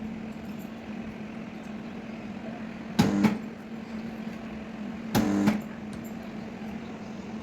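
Sharp metal knocks on a car body panel from dent-repair tools, three of them a couple of seconds apart, the later two ringing briefly, over a steady electrical hum.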